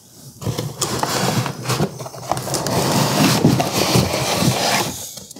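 A molded pulp packaging insert scraping and rubbing against a cardboard box as it is dragged out. The rustling and scraping is continuous, with small knocks, and it stops just before the end.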